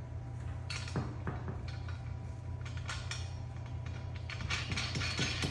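Light metal clicks and clinks of a steel washer being handled and slipped onto a bracket bolt, a few scattered taps over a steady low hum.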